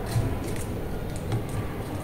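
A few light clicks and taps of cardboard cut-outs being pressed and shifted on a tabletop, over a steady low background rumble.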